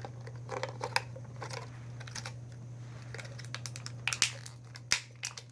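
Plastic toy pieces and packaging being handled: scattered light clicks and crinkling, over a steady low hum.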